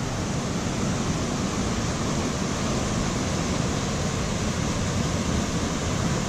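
Fast-flowing river rushing over rapids and a small cascade: a steady, unbroken rush of water.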